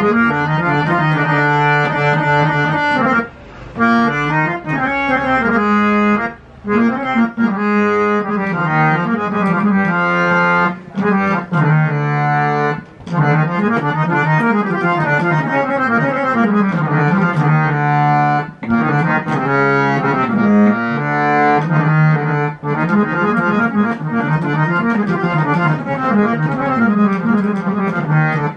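Nagi two-reed-set (bass and male reeds) harmonium played by hand: a changing melody over a held low note, breaking off briefly a few times. The reeds are voiced for a round, mellow tone rather than a sharp one.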